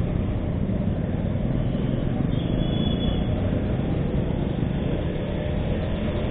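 Steady rumble of a motorcycle riding in slow street traffic: engine, road and wind noise heard from the rider's own bike.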